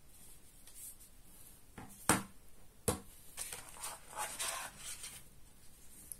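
Hands handling a smartphone, its box and a phone case on a desk. Two sharp knocks come a little under a second apart about two seconds in, followed by a couple of seconds of rustling and scraping.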